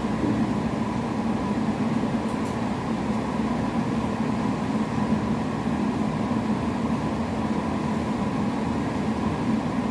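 Steady background drone: a constant low hum with a faint steady higher tone over an even hiss, unchanging throughout.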